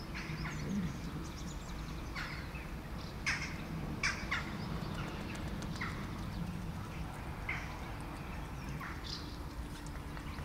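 Cats eating wet cat food: short, irregular smacking and clicking sounds of chewing.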